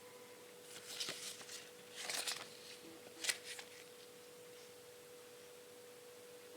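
Three short bursts of rustling and tapping from handling, about a second apart, the last a sharp click, over a steady faint high-pitched hum.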